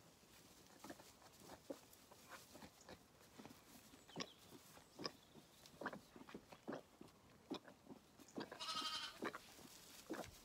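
Zwartbles lamb sucking at a feeding bottle, with soft irregular clicks from its mouth on the teat, and one high bleat from a lamb about eight and a half seconds in.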